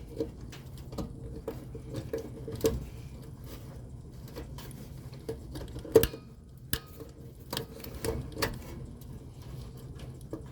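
Scattered metallic clicks and taps from hand work with tools and wiring at an air-conditioner condenser's electrical panel, with one sharper click about six seconds in, over a steady low hum.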